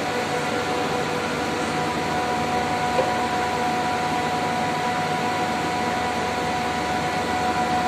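Steady hum of running air-conditioning plant machinery, with several steady tones held over a noise bed. A light tap about three seconds in.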